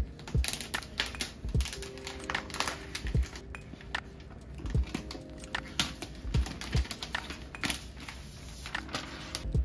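Thin plastic protective film being peeled off an aluminium iMac back and handled, with irregular sharp crackles and clicks and a few soft thumps. Soft background music plays underneath.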